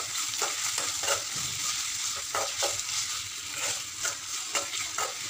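Onions, green chillies, curry leaves and tomato sizzling in hot oil in an aluminium kadai, stirred with a metal spoon that scrapes and clicks against the pan a few times a second.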